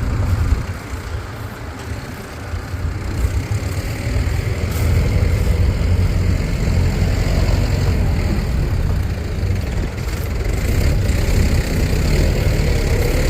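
A heavy vehicle's diesel engine running steadily with a low rumble. It is quieter for a few seconds just after the start, then louder again from about four seconds in.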